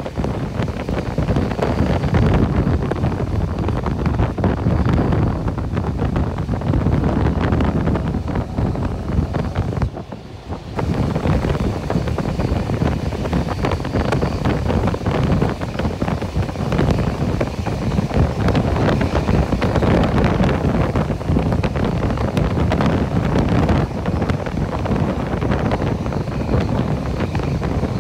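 Heavy wind buffeting the microphone at the open window of a moving train, mixed with the train's running noise, with a brief lull about ten seconds in.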